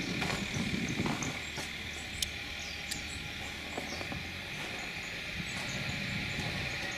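Skoda Octavia 1.4 TSI four-cylinder turbo petrol engine running just after a cold start at −5 °C, with a steady clattering rattle that sounds like a diesel.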